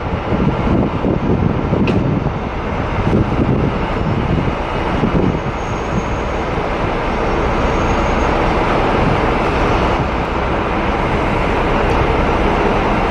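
A train running, a steady loud rumble.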